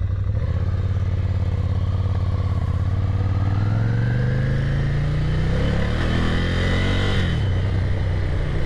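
Ducati Scrambler Café Racer's air-cooled L-twin under way through a Termignoni slip-on exhaust with its baffles removed. The engine note holds steady, climbs steadily under acceleration from about three and a half seconds in, then drops sharply about seven seconds in.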